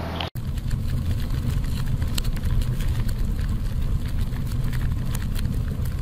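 Outro sound effect: a low, steady rumble with scattered crackles that starts abruptly after a brief cut to silence, laid under a flaming logo animation.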